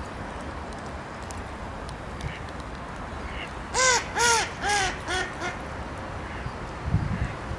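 A crow cawing five times in quick succession, starting about four seconds in, each harsh call fainter than the one before. A brief low rumble comes near the end.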